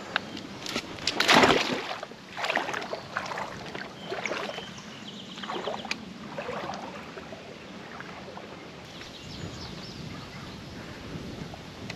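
Water splashing and sloshing in a run of irregular swishes, the loudest about a second in, then quieter and more sparse.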